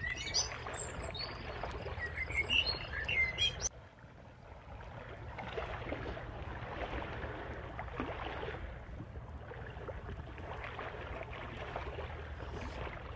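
Outdoor ambience: small birds chirping over a low wind rumble. About four seconds in the sound changes abruptly to a steady rushing noise with faint scattered crackles.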